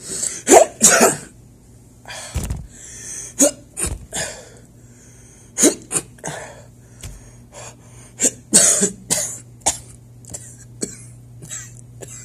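A person coughing in a long fit: short, sharp coughs in irregular clusters, loudest in the first second and again around eight to nine seconds in.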